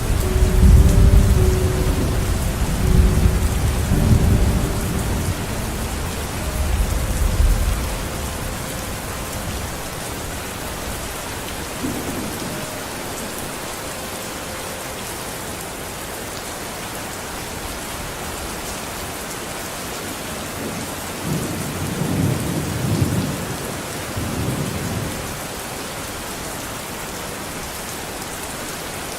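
Steady rain falling, with rolling thunder rumbling loudly at the start and dying away after about eight seconds. A second, softer rumble comes about three quarters of the way through.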